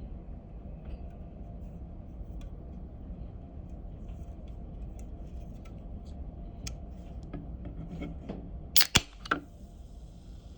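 Coca-Cola can being opened: light ticks and taps as it is handled, then, about nine seconds in, a sharp click and crack of the pull tab breaking the seal in quick succession, followed by a faint fizzing hiss.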